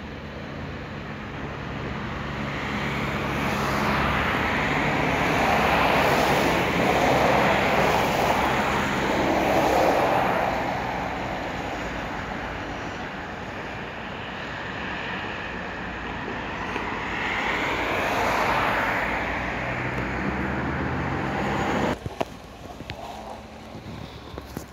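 Vehicles passing on a wet road: tyre noise swells and fades twice over a steady low engine hum, and the sound drops away abruptly near the end.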